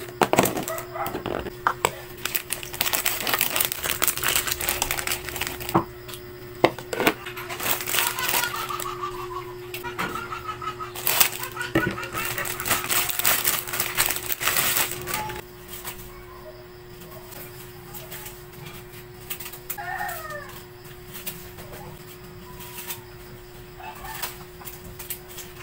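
Plastic snack wrappers crinkling and packs being set down in a plastic storage tub, busy for about the first fifteen seconds, then lighter handling with a few knocks. A steady low hum runs underneath, and short animal calls come through in the background around eight to ten seconds in and again near twenty seconds.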